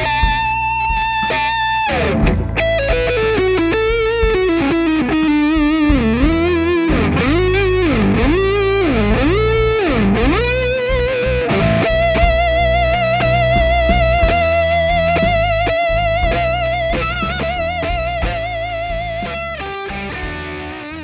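Distorted electric guitar lead through the NUX Amp Academy's Die VH4 high-gain amp model, playing over a blues backing track with drums and bass. A held high note gives way to a run of wide, repeated string bends, then a long sustained note with vibrato, and the sound fades toward the end.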